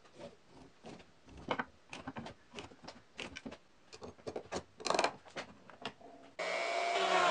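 Scattered short clicks and knocks of wood pieces and a quick-release clamp being handled and set on a slot mortising machine. About six seconds in, the mortiser's router motor comes in abruptly and runs steadily, its pitch wavering slightly.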